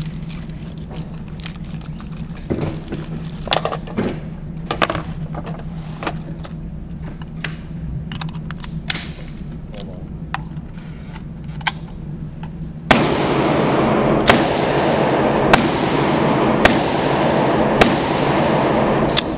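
Handgun shots at an indoor range: scattered sharp cracks over a steady low hum. About two-thirds in, a loud steady hiss starts abruptly and shots come evenly, roughly one a second.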